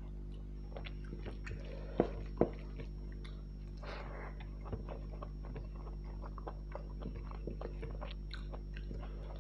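Close-up chewing and mouth sounds of a person eating rice and rohu fish curry: many small irregular wet clicks, with two sharp louder clicks about two seconds in. A steady low electrical hum runs underneath.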